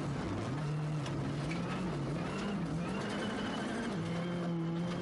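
Rally car engine at full speed on a gravel stage, heard onboard, its pitch dipping and rising several times as the driver lifts and shifts, over a steady rush of tyre and gravel noise.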